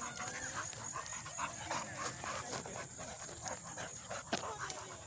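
A dog panting in quick, rhythmic breaths, with a single sharp click about four seconds in.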